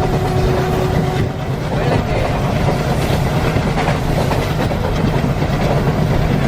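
ALCO WDG-3A diesel locomotive chugging hard under load, heard from the train behind it, over the steady rumble and clatter of the coach's wheels on the rails.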